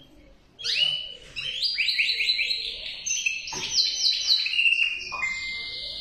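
Male canary singing: after about half a second of quiet, fast runs of repeated high, down-slurred notes, switching to a new repeated phrase every second or so.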